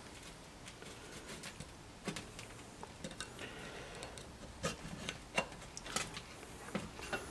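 Small hand pick scraping and clicking against the steel parts of a forklift power steering cylinder while working at an O-ring: faint scratching with a few sharp, irregular clicks.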